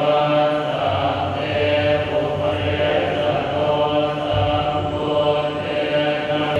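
A group of Thai Buddhist monks chanting Pali verses in unison on a steady, low monotone: paritta chanting for a blessing.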